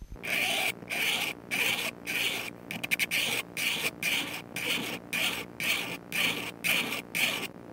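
StewMac fret-end file rasping back and forth along the ends of stainless steel frets on the side of a maple Stratocaster fretboard, about two strokes a second, with a brief run of quick ticks about three seconds in. The file is taking the bulk of the overhanging fret ends down flush with the fretboard edge.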